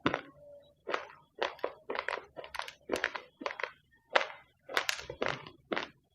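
Raw, uncooked rice grains being chewed close to the microphone: a quick, uneven run of sharp crunches, about three a second.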